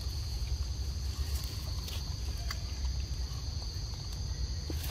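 A steady, high-pitched insect chorus in two close bands over a low rumble, with a few faint clicks; the chorus cuts off just before the end.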